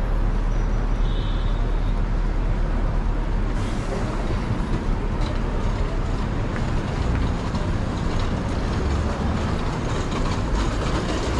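Steady city street noise of road traffic, with a deep, constant rumble underneath.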